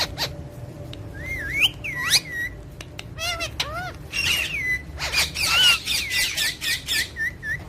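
Parrots whistling and squawking: gliding whistles that rise and fall about a second in and again around four seconds, a few short squawks, then rapid clicking chatter broken by short repeated chirps near the end.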